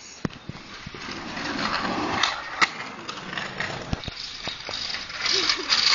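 Small hard scooter wheels rolling over rough tarmac: a steady gritty rattle with scattered clicks and a few sharper knocks.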